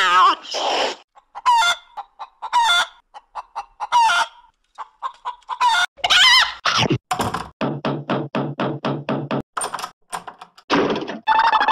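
A string of short sound effects, each cut off abruptly, among them chicken clucking.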